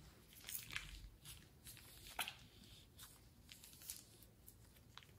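Faint sticky crackles and clicks of thick slime being squeezed out of a plastic piping bag, irregular, with the loudest click about two seconds in.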